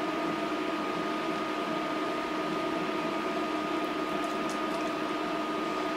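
A steady machine hum, such as a fan or motor, with several constant tones. It holds unchanged, and any whisking is buried beneath it.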